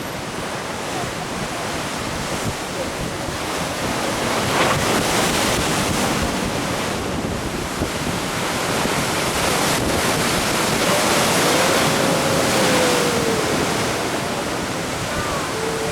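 Sea surf washing onto the shore, swelling and easing, with wind buffeting the microphone.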